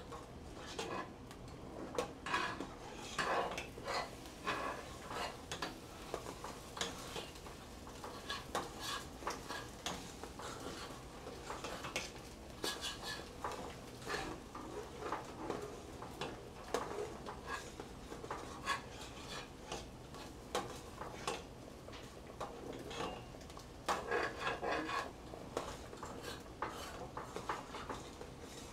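Utensils scraping and clinking against cookware: a spoon stirring sausage gravy in a large stainless steel pot and a utensil pushing scrambled eggs around a skillet, in short irregular scrapes and taps, with a denser run of them near the end.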